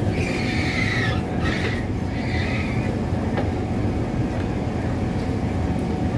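Passenger doors of a Kawasaki Heavy Industries C151 train sliding open, a noisy door with three hissing pulses over the first three seconds, over the steady low hum of the stationary train.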